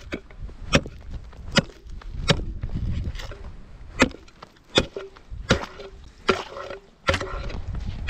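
Ice chisel chopping a fishing hole through thin new lake ice: about eight sharp strikes a little under a second apart, with ice chips crunching, and a short ringing note after some of the later strikes.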